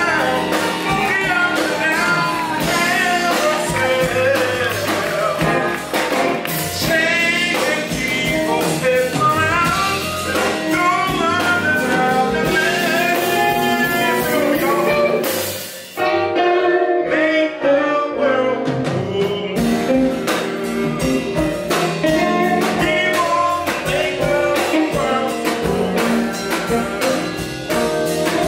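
Live band playing blues-jazz: electric guitar, drums and saxophone, with a man singing. About halfway the sound thins out and dips briefly, then the band comes back in.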